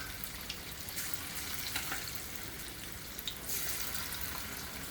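Battered chicken pieces deep-frying in hot oil in a kadhai: a steady sizzle with scattered small crackles, briefly louder about three and a half seconds in.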